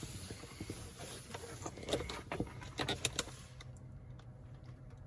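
Scattered small clicks and rustles of handling, with a cluster of sharper clicks in the middle, over a low steady hum.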